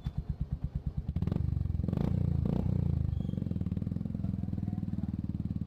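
Royal Enfield Hunter 350's single-cylinder engine through an aftermarket Red Rooster exhaust silencer: it idles with an even thump, is revved about a second in with a couple of blips, then settles into a steadier, faster run.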